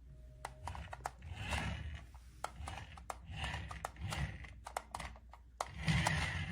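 Toy dinosaur remote-control car backing up and spinning, its small motor and plastic gears whirring in several short bursts, with clicks and knocks in between.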